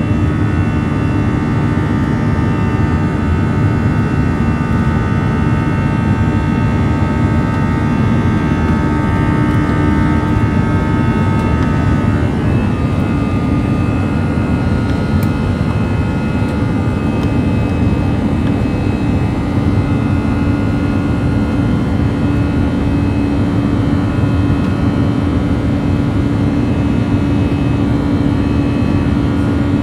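Airbus A321's CFM56 turbofan engines during the climb-out after takeoff, heard inside the cabin over the wing: a steady rumble with the buzz of the engine's fan tones over it. About twelve seconds in, the buzzing tones drop in pitch and change.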